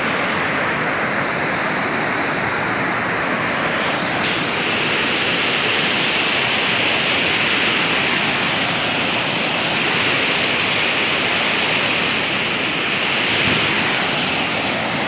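Iguazú Falls' cascades: a loud, steady rush of falling water, its tone shifting slightly about four seconds in.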